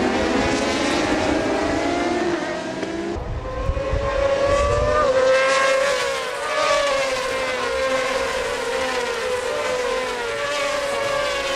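Several racing motorcycle engines at high revs, their pitch rising and falling as they accelerate and change gear.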